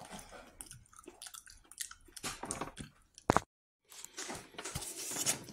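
Close-up chewing and mouth smacks of a person eating a soft slice of pie with whipped cream, in an irregular run of wet clicks. There is a sharp click a little over three seconds in and a brief cut-out, then a stretch of rustling as a hand brushes close to the phone's microphone.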